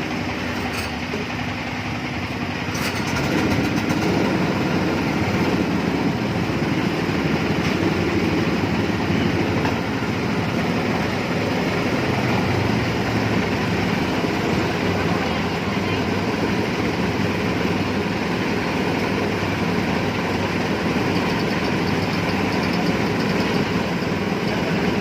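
Motor-driven coconut grinding machine running steadily while it grinds coconut; it gets louder about three seconds in.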